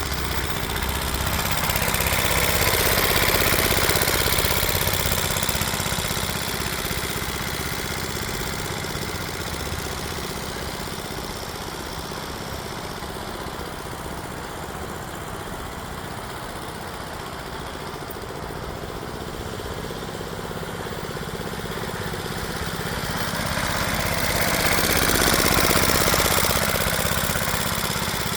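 Late-1930s Ironhorse washing machine engine running steadily, powering a small wagon. It grows louder a few seconds in, fades through the middle, and grows louder again near the end.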